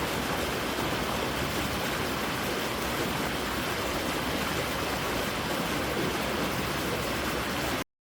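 Creek water rushing steadily, then cutting off abruptly right at the end.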